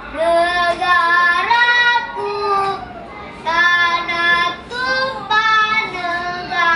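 A child singing alone: slow phrases with long held, wavering notes, and a short break between phrases about three seconds in.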